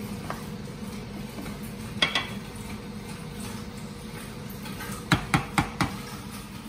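Wooden spatula stirring milk just curdled with vinegar for paneer in a metal pot, over a steady low hum. Two knocks come about two seconds in, then four quick knocks of the spatula against the pot about five seconds in.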